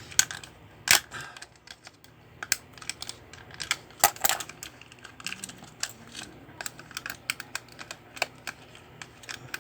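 Irregular sharp clicks and taps of hard plastic parts being handled and worked loose as a toy remote-control car's wheels are taken off.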